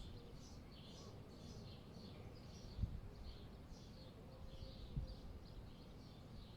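Small birds chirping continuously in many short high chirps over a low wind rumble, with two dull thumps about three and five seconds in.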